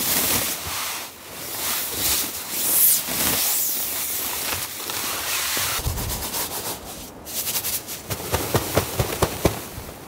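Snow being knocked and brushed off a tent tarp, sliding and falling in a series of loud rushes, then a run of sharp crackling ticks near the end.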